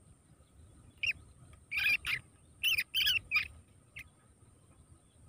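Two field rats caught in a wire cage trap squealing as the trap is lifted: about eight short, high squeals in clusters between one and four seconds in.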